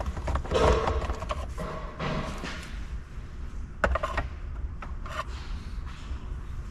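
Irregular clicks, knocks and rustling from hand work on the plastic trim under a steering column, a screwdriver and panel being handled, with a sharp click about four seconds in, over a low steady hum.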